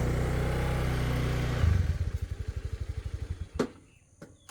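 Motorcycle engine running steadily, then dropping to a slower pulsing beat as it winds down and stops about three and a half seconds in, ending with a sharp click.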